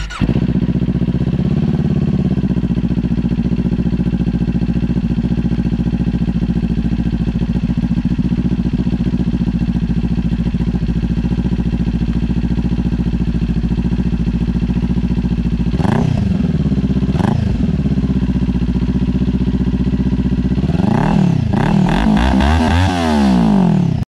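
Kawasaki Ninja 400's parallel-twin engine starting and idling steadily, then revved twice in quick blips about 16 seconds in, and blipped several more times near the end.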